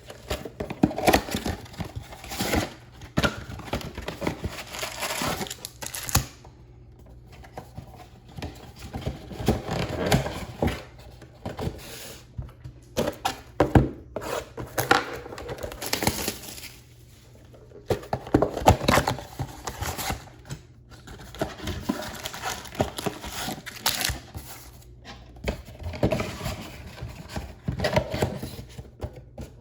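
Shrink-wrapped trading card boxes being opened: wrapping crinkling, cardboard tearing and card packs rustling as they are pulled out, in irregular bursts with short pauses.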